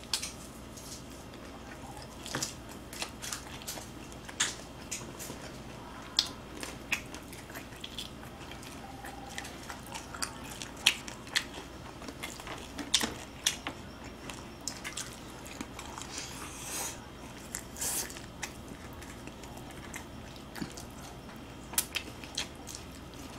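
Crispy fried chicken drumsticks being bitten and chewed close to the microphone: irregular sharp crunches among the chewing.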